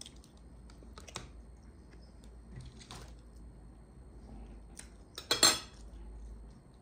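Metal spoon clinking against dishes: a few light taps, then a louder double clatter about five seconds in as the spoon is set down on a ceramic plate.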